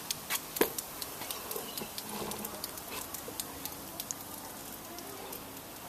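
Baking soda and vinegar foam fizzing out of a model volcano, giving scattered small ticks and crackles, with a couple of sharper clicks in the first second.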